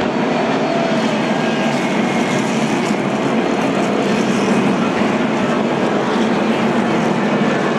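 A full field of NASCAR stock cars' V8 engines running together around the oval, a loud, steady, dense drone.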